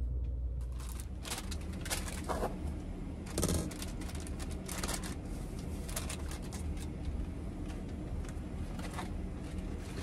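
Someone moving about and handling things inside a camper van: scattered clicks, knocks and rustles, one louder knock about three and a half seconds in, over a steady low hum.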